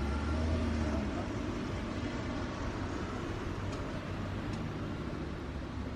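Café ambience: a steady low hum with a faint murmur of distant conversation, and two light clinks of tableware, cups or cutlery, a little past halfway.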